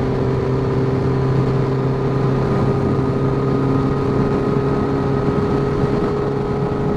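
Honda CBR1100XX Blackbird's inline-four engine at a steady cruise, an even, unchanging engine note under wind and road noise.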